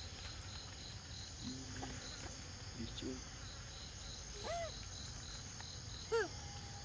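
Steady insect chirring with a regular high chirp pulsing about three times a second. Young macaques give two short squeaks, about four and a half and six seconds in, and the second is the loudest.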